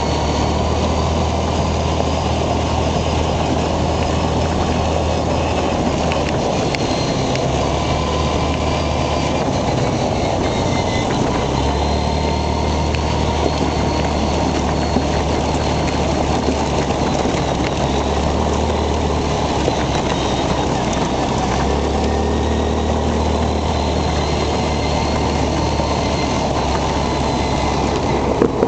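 Quad bike engine running under way along a gravel track, with a steady rush of noise and rattle from the ride; the low engine drone eases off briefly a few times as the throttle changes.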